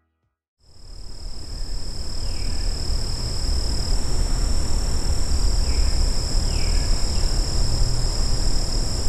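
Evening frog chorus: a steady high-pitched trill with short falling calls every few seconds, over a low rumble. It fades in after a moment of silence.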